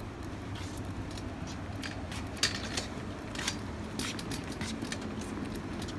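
Metal flat-deck IKEA trolley with a person riding on it, its casters rolling over paving tiles: a steady low rumble with scattered sharp clicks.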